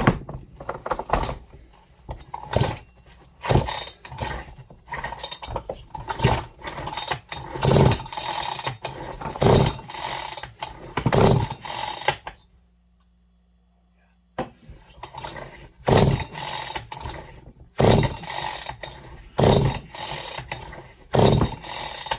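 Chinese clone chainsaw being cranked over and over with its recoil starter rope, with the spark plug out and a compression gauge fitted: a compression test on a freshly fitted cylinder. The pulls come in two runs, with a pause of about two seconds between them.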